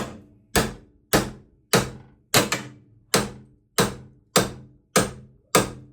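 Hammer blows on a bent steel wing-mounting bracket of a car, struck about ten times at a steady pace of roughly one every 0.6 s, each blow ringing briefly. The bracket is being knocked back into shape after crash damage.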